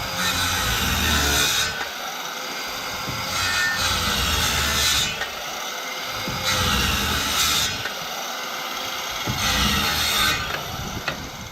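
Power saw cutting through an old timber capping rail, the cut growing louder in surges about every two and a half seconds as the blade bites into the wood.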